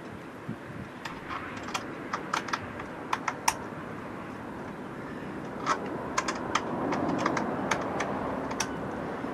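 Irregular sharp clicks and light taps from hand work on the underside of a catamaran's deck, in two bursts, over steady background noise.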